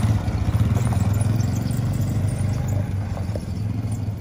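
Small ATV (quad bike) engine running with a fast, low pulsing, slowly growing fainter as the quad moves off.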